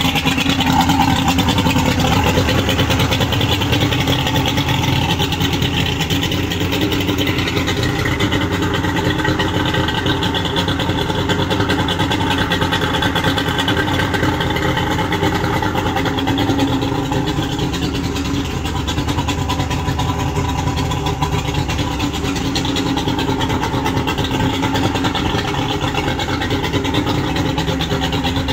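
Mercury 200 2.5L two-stroke V6 outboard running steadily at a fast idle.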